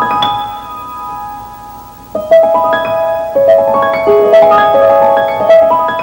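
Soundtrack music of struck, ringing notes. A held chord rings at first, and from about two seconds in a quick, bouncing run of notes follows.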